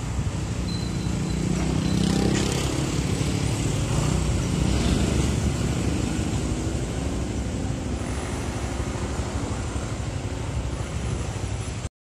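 Street traffic with motor scooters riding past close by, their small engines loudest about two to five seconds in, over a steady background of road noise. The sound cuts off suddenly just before the end.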